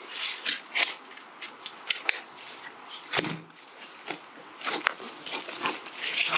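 Small gear items being handled and packed away by hand: a run of light clicks, taps and rustles, with a heavier knock about three seconds in.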